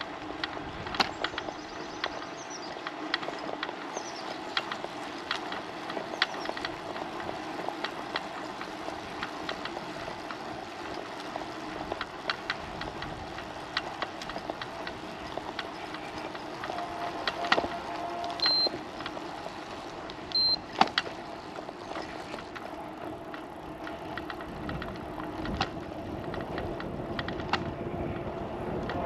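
Bicycle ride recorded on a bike-mounted or helmet-mounted action camera: a steady hum of tyres on the road, with many scattered clicks and rattles, a few high chirps near the start and two short high beeps in the middle.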